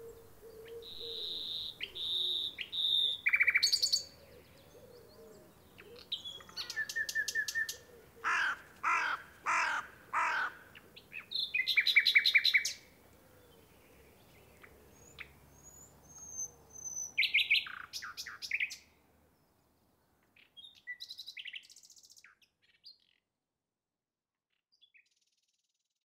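Common nightingale singing in varied phrases with short pauses between them: clear whistles, rapid trills and a run of loud repeated notes. The song fades out about three-quarters of the way through.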